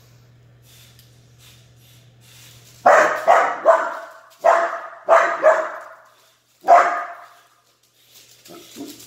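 An Aussiedoodle puppy play-barking at a small remote-control toy car: seven sharp barks from about three seconds in, three in quick succession, three more, then a single one, over a steady low hum.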